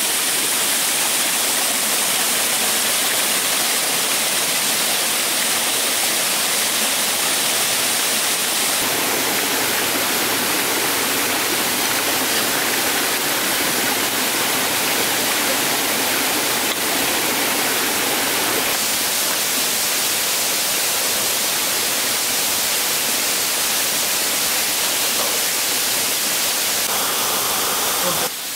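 Water from a small waterfall rushing steadily over rocks, with slight shifts in its tone a couple of times.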